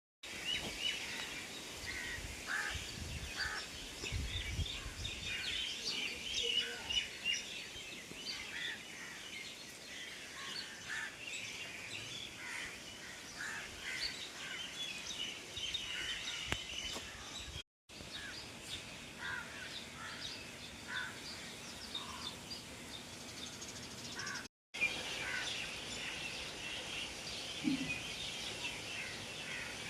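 Many birds chirping and calling together in a dense chorus of short high notes over a steady outdoor background hiss, with some low thumps in the first few seconds. The sound drops out briefly twice.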